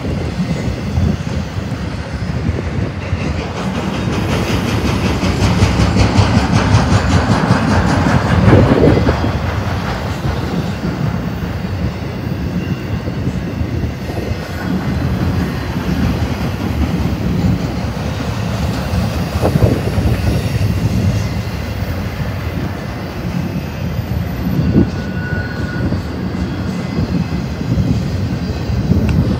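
BNSF intermodal freight train's cars rolling past close by: a steady rumble and rattle of steel wheels on the rails, with a few louder clanks as the wheel trucks go by.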